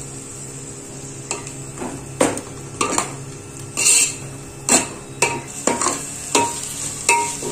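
Perforated metal skimmer spoon stirring and scraping around an aluminium pot, with irregular clinks and scrapes about once a second. A ground ginger-garlic and herb paste is being sautéed in oil with onions, with a low frying sizzle underneath.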